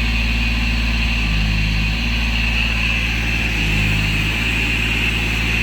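An engine runs steadily under a constant hiss of compressed air while the liner tank is pressurized to push the epoxy liner out through the inversion head.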